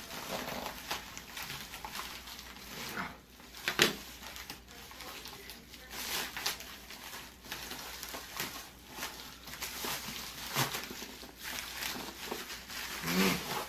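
Irregular rustling and clicking of packaging being handled and opened by hand, with a sharper knock about four seconds in.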